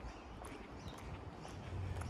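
Faint footsteps of a person walking outdoors.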